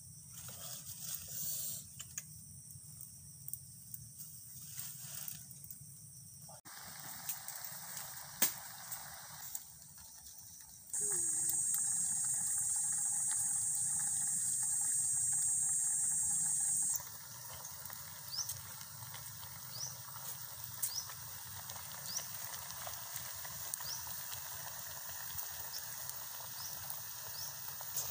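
Food cooking in a lidded wok over a crackling wood fire. A loud, steady high hiss holds for several seconds in the middle and stops abruptly. Short rising chirps come about once a second in the second half.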